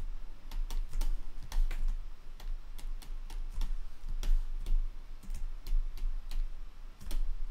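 Computer keyboard keys and mouse buttons clicking at an irregular pace, as shortcuts are entered while editing in Blender, over a steady low hum.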